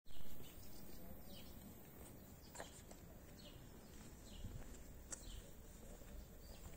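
Small birds chirping, a series of short falling chirps every second or so, over a low outdoor rumble. A loud thump right at the start, with a couple of sharp clicks later on.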